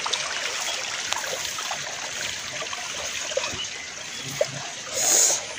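Small stream of water running with a steady trickle, and a short hiss about five seconds in.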